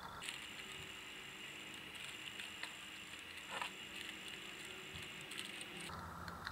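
Faint soft taps and scrapes of a silicone spatula smoothing thick chicken nugget batter in a plastic-lined baking tin, over a steady faint high-pitched background whine.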